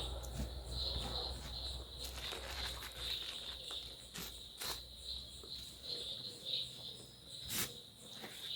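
Insects chirring steadily in the background, with a few sharp clicks about halfway through and again near the end.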